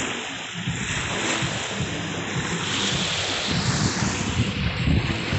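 Small waves washing up and breaking on a pebbly shore, with wind buffeting the microphone, gustier in the second half.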